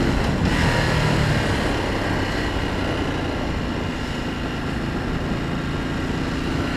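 Ducati Multistrada Pikes Peak's L-twin engine running while riding, heard from a bike-mounted camera with heavy wind rush over the microphone.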